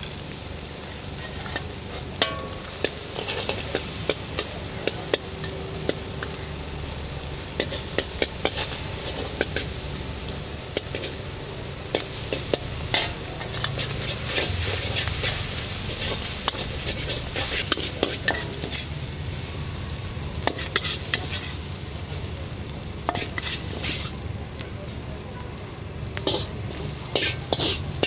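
Char kway teow noodles sizzling in a hot wok while a metal spatula scrapes and clanks against the wok many times at an irregular pace.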